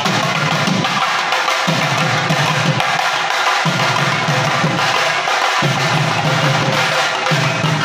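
Drums of a temple procession being beaten in a fast, continuous rhythm, loud and dense, with the deep drum strokes coming in stretches of a second or two.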